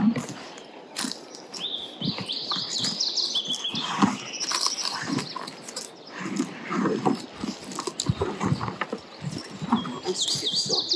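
A small bird singing quick phrases of high chirps, about two seconds in and again near the end, over scattered knocks and rustles of pack gear and rope being handled. A short, louder noise comes right at the start.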